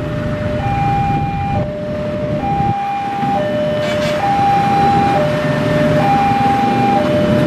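Railway level-crossing warning alarm sounding its alternating high–low two-tone signal, each tone lasting just under a second, over the rumble of a passing train. The alarm signals that the crossing is closed for trains.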